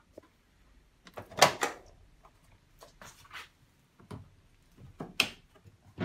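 Hard plastic knocks and clicks as the condenser access flap at the foot of an AEG Lavatherm condenser tumble dryer is opened and the condenser unit behind it is handled. It is a scattered run of knocks, the loudest about one and a half seconds in, with smaller clicks after it.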